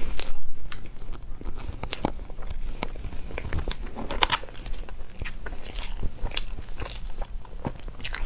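Chewing a soft mango crepe towel roll filled with whipped cream: a string of small, irregular mouth clicks and smacks.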